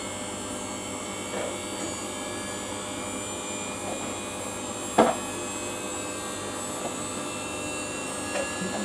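Steady machine hum with a few faint clicks, and one sharp knock about five seconds in.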